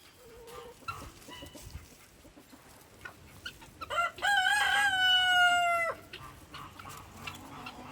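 A rooster crowing once, about four seconds in: a quick rising start, then a long held note that falls slightly and cuts off sharply. Softer, short chicken calls come before it.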